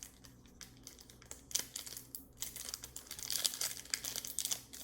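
Wrapper of a baseball card pack being torn open and crinkled. Scattered crackles become denser in the second half.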